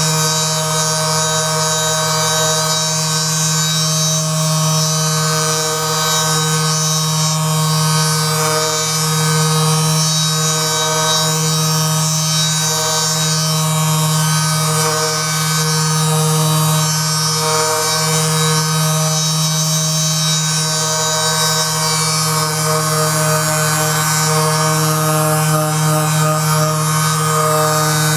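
Steady electric buzz of a small motor, a strong low hum with many higher steady tones over it, swelling slightly in strength now and then.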